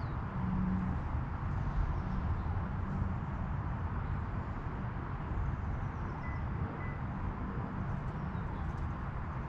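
Steady outdoor background noise, mostly a low rumble, with a few faint high chirps from small birds.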